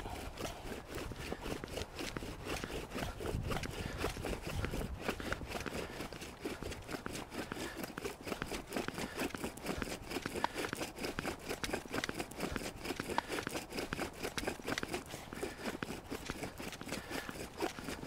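Bow drill being worked at speed: a wooden spindle, spun back and forth by a cord bow, grinding into a birch chaga (tinder fungus) hearth to build up a coal by friction. The strokes come as a steady, even run of rasping scrapes.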